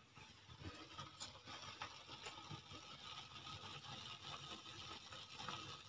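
Faint steady hiss of a pot of chicken pieces boiling on a lit gas stove burner, with faint irregular ticks.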